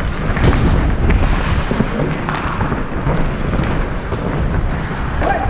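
Wind buffeting a helmet-mounted GoPro's microphone as the wearer skates, over the scrape of skate blades on ice, with a few sharp clicks.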